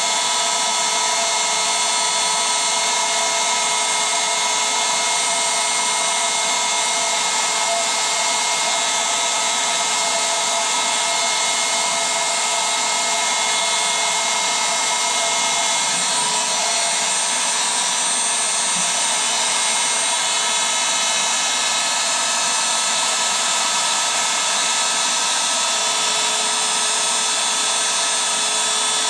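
Electric air pump running steadily, blowing air into an inflatable: a constant motor whine over a loud rush of air.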